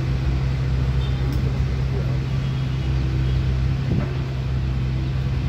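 Diesel engine of an UltraTrex mini amphibious excavator running with a steady low hum while it digs, with one brief knock about four seconds in.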